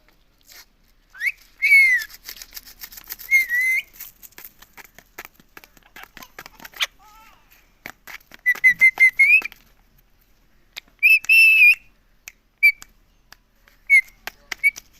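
Indian ringneck parakeet giving clear whistled calls and chirps: a few drawn-out notes, a quick run of short repeated notes midway, then scattered short chirps, with many small clicks in between.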